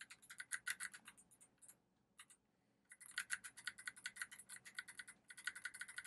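Faint typing on the FL980 mechanical keyboard with clicky Kailh Box White switches, which click on both press and release. Quick runs of keystrokes, a pause of about a second with a single click in the middle, then steady fast typing again.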